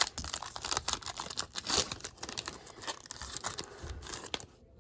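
Foil wrapper of a baseball card pack being torn open, crinkling and tearing in quick irregular rustles, dying away near the end.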